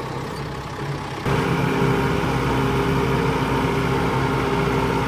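Tractor engine running steadily. It gets abruptly louder about a second in.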